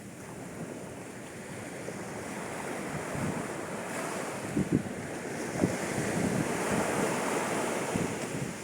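Sea waves breaking and washing up a sandy beach at high tide, the wash swelling to its loudest in the second half and easing near the end, with a few brief low thumps of breaking water. Wind buffets the microphone.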